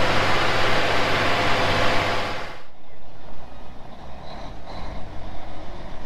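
Heavy farm vehicle engine and machinery running loud. About two and a half seconds in, the noise cuts off suddenly to a quieter low engine rumble.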